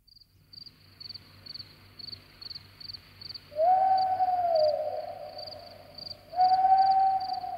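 Night-time sound effect: crickets chirping in a steady rhythm of two or three chirps a second, with two long owl hoots, each held and then falling away at its end, starting about three and a half and six seconds in.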